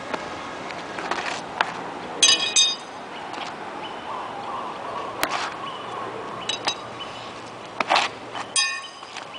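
Pair of metal sai clinking and ringing as they are spun and flipped in the hands. There are short bursts of metallic clinks about two seconds in, again around six and a half seconds, and near eight and a half seconds, with a single sharp click in between.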